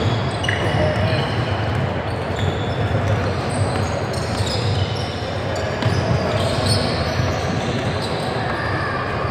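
Basketball being dribbled on a hardwood gym floor, with sneakers squeaking in short high chirps and players' and spectators' voices echoing in the hall.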